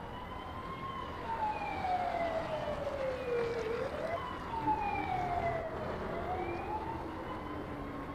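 Police siren wailing, its pitch sliding slowly up and down, with a rise or fall about every one and a half to three seconds.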